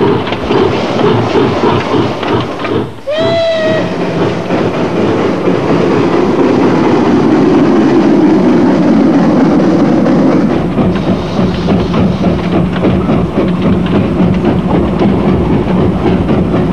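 Narrow-gauge steam locomotive running, with steam hissing around the cylinders and rail noise, swelling to its loudest midway. About three seconds in, a short whistle note rises briefly and then holds.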